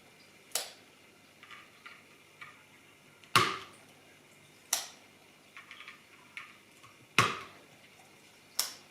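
Holy Panda mechanical switches snapping into the hot-swap sockets of a GMMK TKL keyboard: five sharp clicks a second or two apart, with fainter plastic ticks of handling in between.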